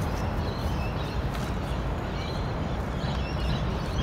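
Outdoor background: a steady low rumble of wind or distant traffic, with faint, scattered bird chirps.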